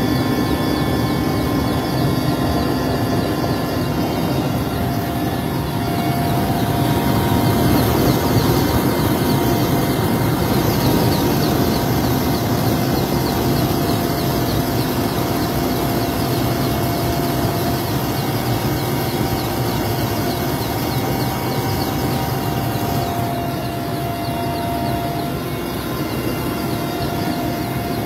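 Military helicopter's turbine engines and rotor running steadily: a continuous dense rumble with a steady whine over it.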